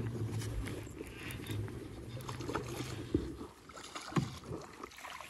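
Baitcasting reel being cranked as a hooked fish is reeled in beside a kayak, with water splashing. A low steady hum runs for the first couple of seconds, and two sharp knocks come about three and four seconds in.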